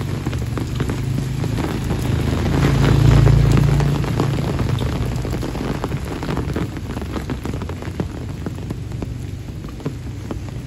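Steady rain falling on a wet road and leaves, with scattered drops ticking. About three seconds in, a motorbike engine swells as it passes close and then fades.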